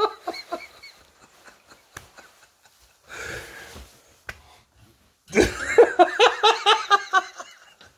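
Laughter that trails off in the first second, a quiet stretch with a few light clicks and a brief rustle, then another loud burst of rhythmic laughter from about five seconds in until near the end.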